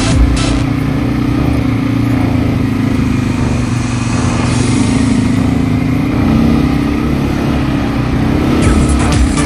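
Quad bike (ATV) engines running steadily at a low, even pitch as the machines ride a rough trail. Music with a regular beat is heard briefly at the start and comes back in near the end.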